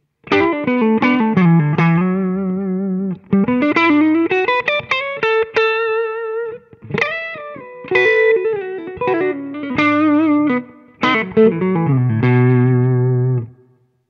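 Electric guitar lead played through Line 6 HX Effects into a BluGuitar Amp 1 with the amp's boost on a clean tone. It is a single-note line with bends and vibrato, ending on a held low note that is cut off near the end. The tone has a very tube-like top end, not spiky or brittle.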